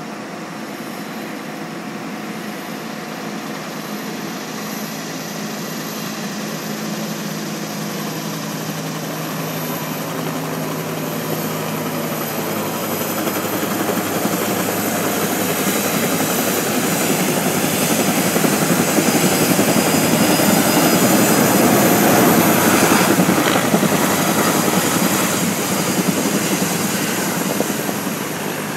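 Logging helicopter's rotor and engine running steadily, growing louder as it comes closer, loudest about three-quarters of the way through, then easing slightly.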